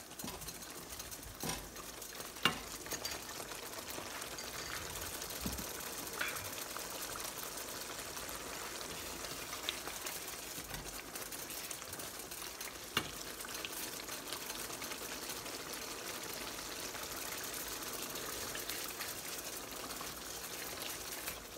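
Thick tomato and berbere sauce simmering and sizzling in a nonstick frying pan, a steady hiss, while a wooden spoon stirs it, with a few light knocks of the spoon against the pan.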